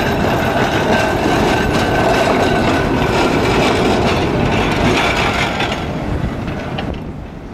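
Blackpool twin-car tram set 675+685 running past close by, its wheels and running gear loud on the rails, then fading away near the end as it pulls off along the track.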